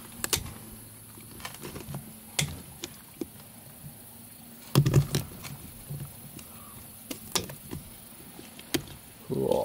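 Shears snipping through a softshell turtle's skin around its bottom shell, heard as scattered irregular clicks with a few louder knocks, the loudest about halfway through.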